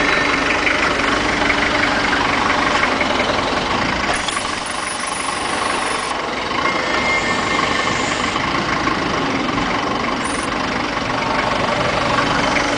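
3-ton diesel forklift engine idling steadily, with a faint steady whine above it.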